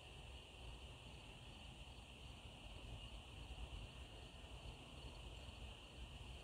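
Faint, steady chorus of insects at dusk, an unbroken high buzz, with a low rumble underneath.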